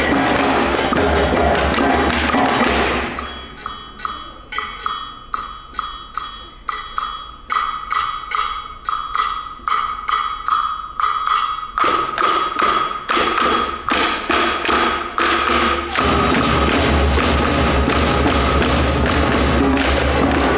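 A percussion ensemble plays drums and small hand percussion. A dense full passage thins about three seconds in to sparse rhythmic taps and clicks, which grow busier until the full ensemble comes back in about sixteen seconds in.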